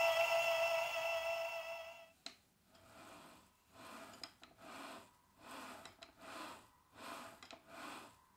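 Small drill press motor running with a steady high whine, switched off with a click about two seconds in. After it come soft, evenly repeated swishing or rubbing strokes, about seven of them.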